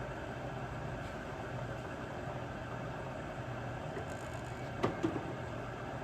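Clausing 2285 four-spindle drill press running, a steady motor hum, with two light clicks about five seconds in.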